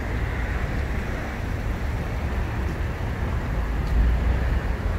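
Steady road traffic noise from cars driving along the bridge roadway, a low rumble that swells briefly about four seconds in.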